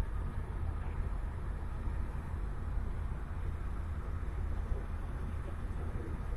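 Steady low rumble of tyre and engine noise inside a car's cabin while driving at highway speed.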